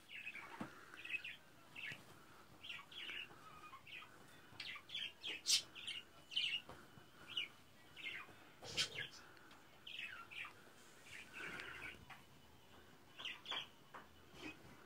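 Cockatiel giving repeated short chirping calls in quick, uneven succession, agitated as it goes after a person's feet, with a couple of louder calls about five and a half and nine seconds in.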